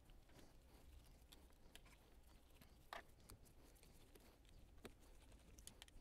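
Near silence: faint room tone with a few faint, sharp clicks of small parts being handled, the clearest about three seconds in.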